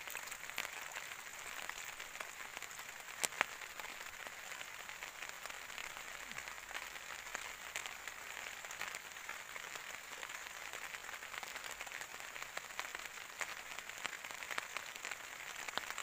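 Light rain falling steadily, a faint even hiss with scattered small drip ticks. About three seconds in there is one sharp click.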